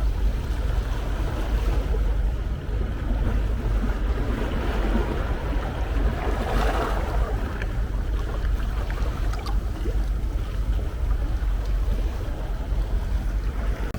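Ocean surf: waves washing and breaking on a shore in a continuous rush, with a deep steady rumble underneath. A wave builds and breaks more loudly about halfway through.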